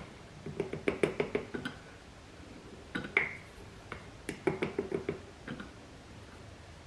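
A measuring spoon clinking and tapping against the rims of the containers while coconut flour is spooned out, in several quick bursts of small clicks, one with a short ring.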